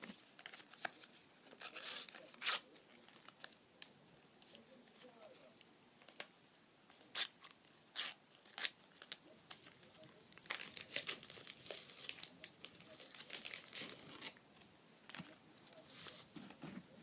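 Topps sticker packets being torn open and their wrappers crinkled, with sharp rips and snaps and a longer stretch of crinkling and rustling partway through as stickers are handled.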